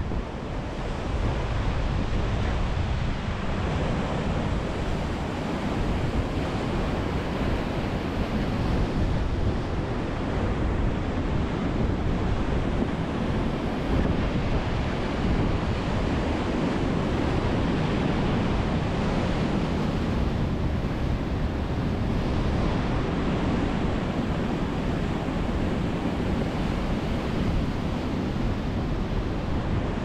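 Sea surf breaking along a pebble shore and washing against a breakwater of concrete tetrapods: a steady, unbroken rush of white water.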